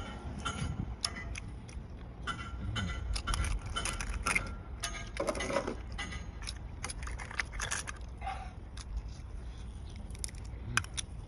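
Hands handling and prying apart cooked shellfish shells: a run of small, sharp clicks and cracks, with eating sounds.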